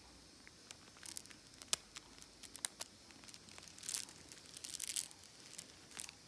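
Irregular sharp clicks and crinkles as a galah picks with its beak at cloth and a string of plastic prayer beads in a lap, densest around four to five seconds in.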